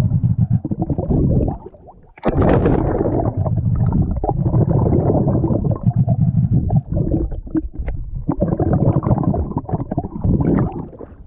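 Underwater rumbling and gurgling of a diver's exhaled bubbles, heard close to the microphone, with a short break about two seconds in.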